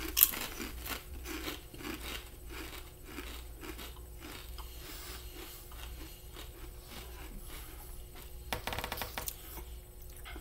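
Ruffles ridged potato chips crunching as they are bitten and chewed, a run of crisp crunches with a sharp bite right at the start and a louder cluster of crunching near the end.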